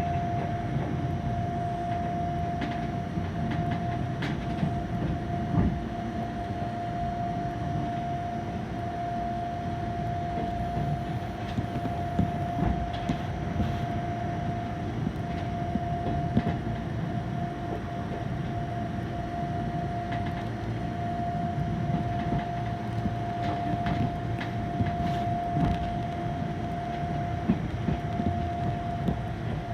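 Fukui Railway 770-type tram car running slowly, heard from inside the car: a steady low rumble of the running gear with scattered short clicks from the wheels on the track, under a steady high hum that holds one pitch throughout.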